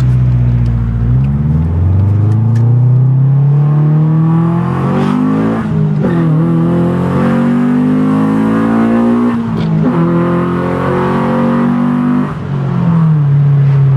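1999 Honda Civic Si's 1.6-litre DOHC VTEC four-cylinder, freshly tuned with new spark plugs and oil, accelerating hard. The engine note climbs steadily, drops sharply at an upshift about six seconds in and again at about ten seconds, then holds fairly steady near the end.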